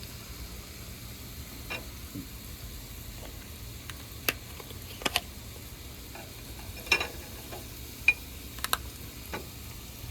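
Chicken thighs, carrot and green onion cooking gently in coconut oil in a pan over a low flame, with a low steady sizzle. About eight short sharp clicks and taps are scattered through it, the loudest two thirds of the way in.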